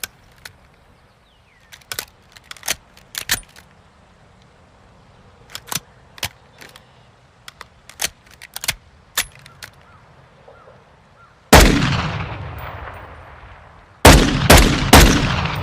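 Desert Eagle pistol sound effect. First come scattered sharp metallic clicks and clacks of the gun being handled. About 11.5 s in there is one loud gunshot with a long, echoing tail, and near the end three more shots follow in quick succession.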